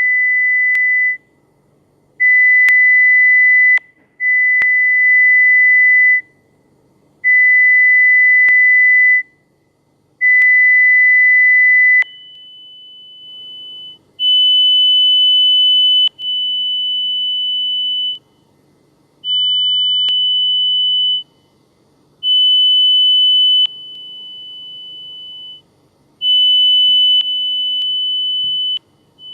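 Hearing-test app playing pure test tones for audiometry: steady beeps of about two seconds each, separated by short gaps, at stepped loudness levels that change from tone to tone. The pitch switches to a higher test tone about twelve seconds in.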